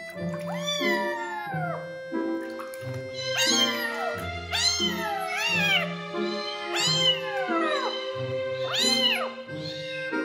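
A young kitten meowing repeatedly, about seven high cries that each rise and fall in pitch, as it is held and washed in a soapy sink. Background music runs underneath.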